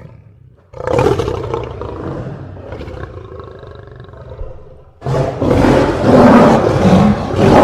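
A big cat roaring twice: a first roar about a second in that slowly fades, then a second, louder roar from about five seconds in.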